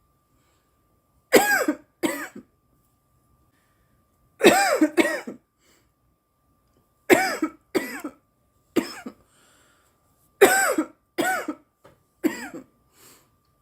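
A young woman coughing repeatedly, in bouts of one to three coughs every one to three seconds, about eleven coughs in all.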